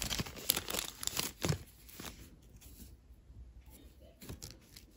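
Plastic sample bag crinkling and rustling as it is handled and opened, dying down after about two seconds.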